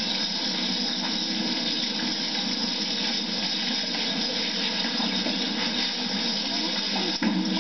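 Steady hiss from an old videotape playing back through a television, with no distinct event in it.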